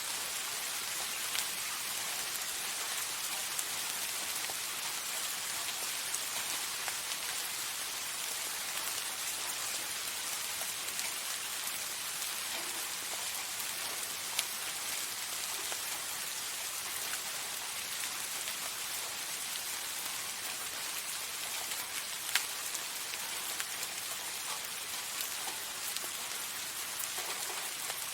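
Soft, steady rain falling on a surface: an even hiss with scattered individual drop ticks, one slightly sharper drip about three-quarters of the way through.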